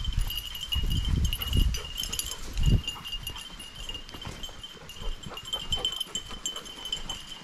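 A bird dog's collar bell jingling continuously as the dog runs, a bright ringing that flickers in strength. Low rumbling bumps are loudest in the first three seconds.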